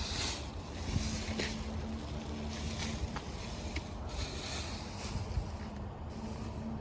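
Steady low rumble with wind buffeting the microphone, a faint steady hum underneath and a few light clicks.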